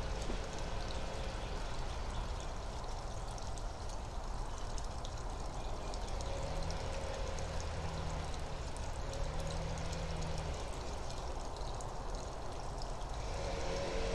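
Lawn power equipment running in the distance: a steady rushing hiss, with an engine drone that comes and goes.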